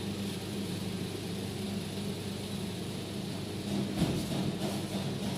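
A car engine idling steadily, with a single knock about four seconds in.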